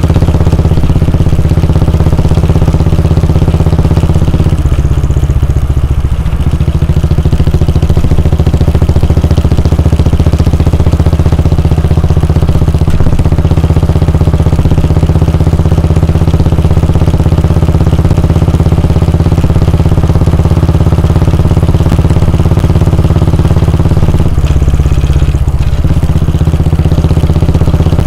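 Royal Enfield Bullet 350's 349 cc air-cooled single-cylinder engine idling with a steady, low exhaust thump. Its note shifts briefly twice, a few seconds in and near the end.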